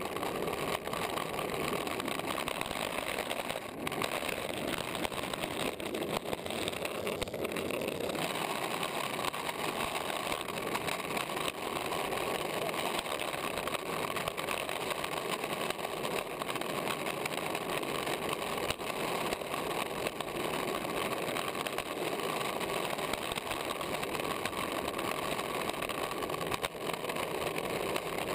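Longboard wheels rolling over asphalt, picked up by a camera mounted on the board's nose: a steady, unbroken road noise.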